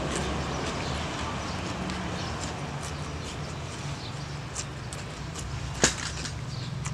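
Steady low background hum with scattered light clicks, and one sharp click about six seconds in, from a grilled snail's shell being handled with a metal pick.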